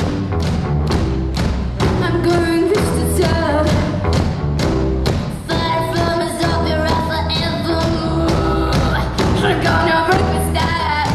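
Live rock band playing: drums keeping a steady beat under electric guitars, bass and keyboard, with a female lead vocalist singing from about two seconds in.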